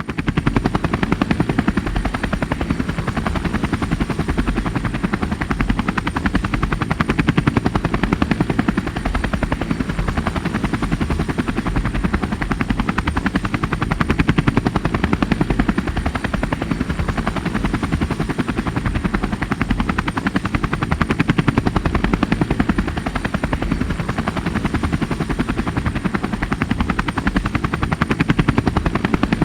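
Helicopter rotor sound added in editing: a fast, steady blade chop with heavy low rumble and a thin high whistle.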